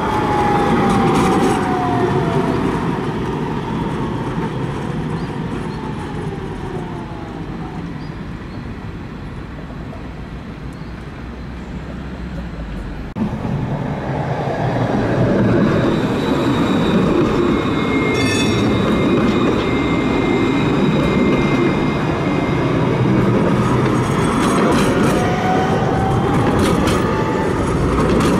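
Eurotram low-floor electric trams running on street track: wheels rolling on the rails, with the traction motor's whine falling in pitch as one tram slows. After a sudden change about 13 seconds in, a thin high squeal and rolling noise follow, then a whine that rises in pitch as a tram pulls away.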